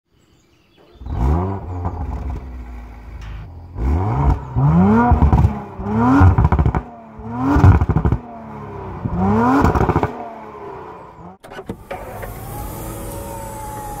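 Audi RS4 Avant B9's twin-turbo V6 with the sport exhaust being revved while stationary: about six to seven short blips, each pitch rising then dropping back, with crackles from the exhaust between them.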